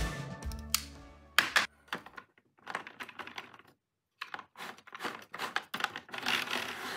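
Music fades out, and a staple gun snaps twice. Then comes a long run of quick clicking and clattering from 3D-printed plastic gears as the large gear of the backdrop mechanism is turned by hand. The mechanism is not turning properly, and it was later cured with lubrication.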